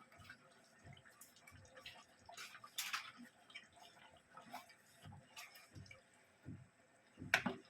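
Faint kitchen handling sounds: scattered light clicks and soft knocks, with a short swish about three seconds in and a sharper clack near the end.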